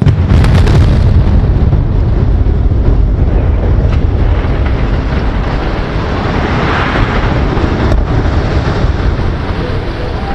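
Explosive demolition charges firing at the base of two concrete cooling towers: a sudden blast with a quick run of sharp cracks, then a long, deep rumble as the towers collapse, slowly fading near the end.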